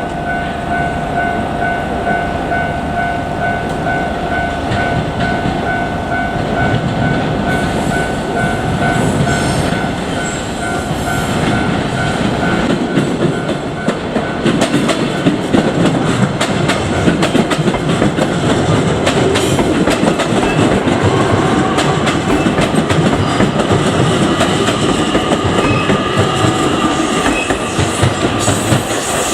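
JR Kyushu 817 series electric train running past over a level crossing, its wheels clicking rapidly over the rail joints, growing louder about halfway through. A steady ringing tone, typical of a level crossing alarm, sounds at first and fades out within the first dozen seconds.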